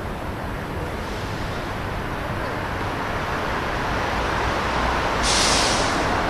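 Steady vehicle noise that slowly grows louder, with a short sharp hiss about five seconds in.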